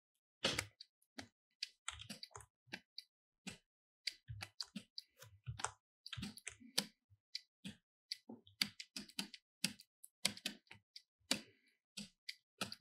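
Irregular clicking and tapping of a computer keyboard and pointing device, dozens of short clicks at an uneven pace, some duller and lower than others.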